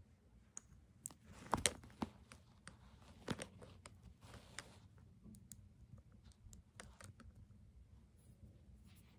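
Long acrylic fingernails tapping and clicking on glass jars: an irregular scatter of light taps, with a few louder knocks in the first few seconds.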